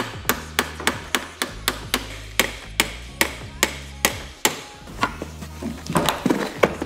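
Hammer tapping the top of a BMW F30's windshield-wiper spindle bolt, with a wrench levered under the wiper arm, to break the arm free where it has seized onto the spindle's threads: a quick run of sharp metal taps, a few a second. The taps stop about four and a half seconds in, followed by a few irregular knocks and rattles.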